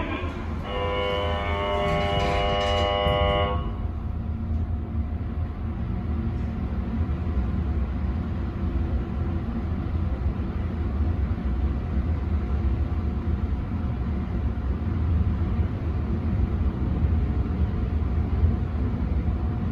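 Hitachi hydraulic passenger elevator: the door-closing buzzer sounds as one steady tone for about three seconds. Then the car travels with a steady low hum and rumble.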